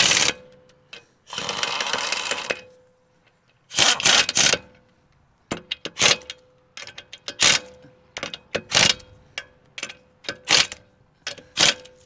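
Air impact wrench spinning lug nuts onto a steel truck wheel, firing in bursts. The bursts last about a second each in the first half, then come as a run of short blips with metallic clicks as the nuts are snugged down.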